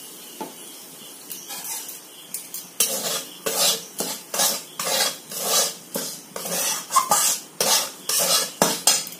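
Flat metal spatula scraping and stirring dry semolina around a metal karahi. A few light scrapes at first, then from about three seconds in a quick, even run of scraping strokes, roughly two a second.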